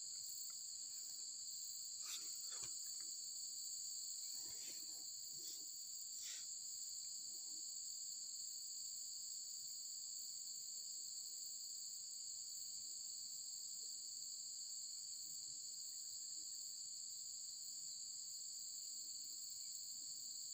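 Steady, unbroken high-pitched insect chorus, several pitches held together. A few faint ticks over the first few seconds.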